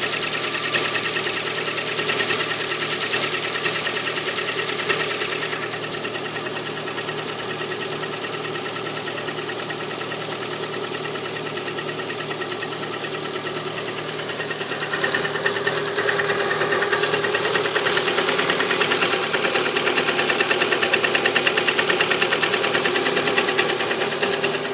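Lada Priora's 1.6-litre 16-valve four-cylinder (VAZ-21126) engine running cold with a rapid metallic piston knock; the knock is traced to the fourth cylinder, where cutting that cylinder's ignition coil silences it. The sound gets louder about fifteen seconds in.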